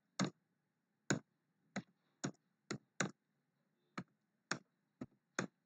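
Computer keyboard keystrokes: about ten separate, irregularly spaced clicks as integers are typed in one at a time, each followed by Enter.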